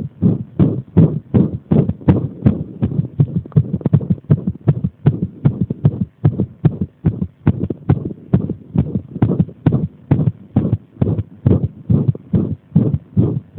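Close-up recording of a human heartbeat: a quick, continuous run of muffled thuds, several each second, spaced a little unevenly. The uploader presents it as an arrhythmia brought on by applying pressure.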